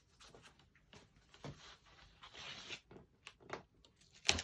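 Scratchy rustling and scraping as cardboard and a wooden tick stick are handled on a workbench, with small clicks and one sharp click near the end.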